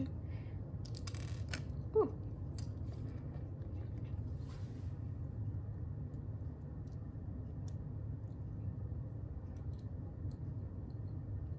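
Steady low room hum, with a few faint clicks and rustles of handling in the first few seconds and one short falling squeak about two seconds in.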